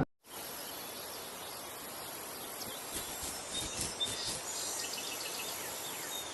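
Faint outdoor ambience: a steady hiss, with a few faint bird chirps from about three seconds in.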